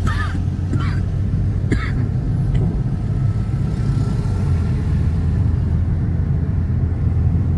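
Steady low rumble of a car's engine and road noise heard from inside the cabin while driving, with a few brief sharp sounds in the first two seconds.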